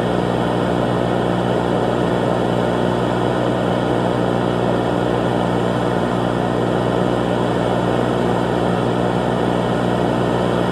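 An engine running at a steady speed, with a constant drone of evenly spaced tones and no change in pitch.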